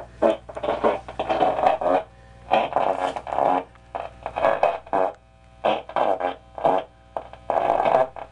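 Zenith black-dial vape-tube radio...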